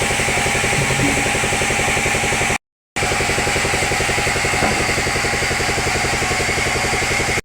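An engine running steadily with a fast, even pulse and a steady whine, broken once by a brief silence about two and a half seconds in.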